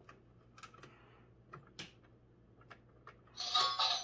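Light plastic clicks as toy coins are pushed one at a time into a toy vending machine's coin slot. About three and a half seconds in, a louder rattling clatter with some ringing.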